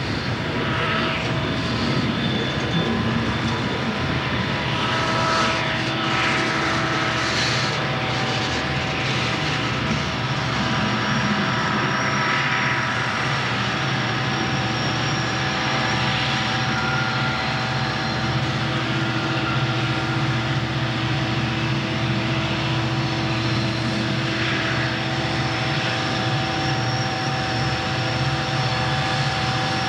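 Several Southern Pacific diesel locomotives, a helper set in the middle of a tank car train, passing close by with their engines running in a steady low drone, with steady ringing tones over it.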